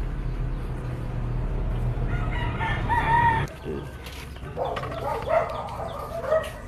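A rooster crowing twice, once about two seconds in and again, longer, about four and a half seconds in, over a low steady hum that stops halfway through.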